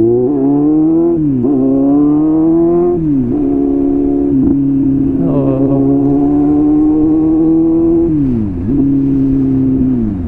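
Kawasaki Z800's inline-four engine with a loud exhaust, accelerating hard through the gears. The pitch climbs and drops sharply at each shift, about one and three seconds in, then holds steady at speed. It dips once more and falls near the end as the throttle closes.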